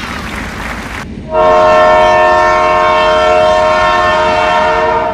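Freight train rolling past, then a diesel locomotive's horn sounds one long, steady chord of several notes from about a second in until just before the end.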